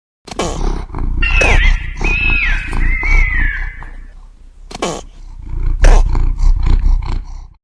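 A wild animal's loud calls, coming in irregular bouts, with a high wavering whistle-like call in the first few seconds.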